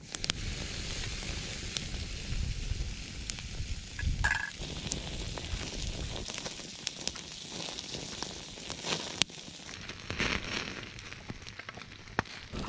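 Steak searing in a wire grill basket over an open wood fire: a steady sizzle with the fire crackling and popping in many sharp little clicks.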